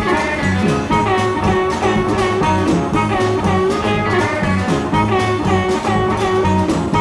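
Electric blues band playing an instrumental passage over a steady, driving beat, with bending lead lines over bass and drums.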